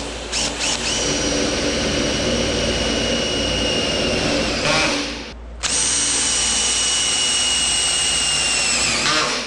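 Makita 18V cordless drill-driver running a self-tapping screw through expanded steel mesh into the steel frame, its motor giving a steady high whine. There are two long runs with a brief stop just past halfway, and the pitch sags slightly just before the second run stops.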